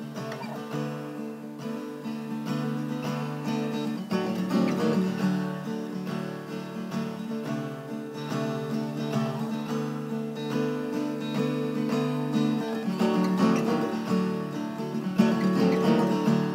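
Acoustic guitar playing an instrumental break between sung verses, growing gradually louder.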